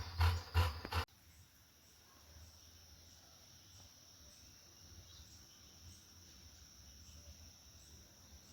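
A loud, rhythmic noise close to the microphone cuts off abruptly about a second in. After it comes a quiet outdoor background with the steady, high-pitched chirring of crickets.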